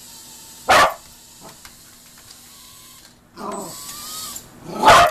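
Cocker spaniel barking: two sharp single barks about four seconds apart, with a quieter drawn-out sound in between.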